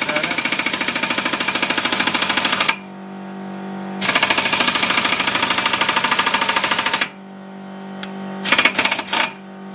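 Impact wrench hammering in two bursts of about three seconds each, driving a nut down against a socket to pull an extended wheel stud into the rear hub. A steady hum continues between the bursts, and a few short knocks and rattles come near the end.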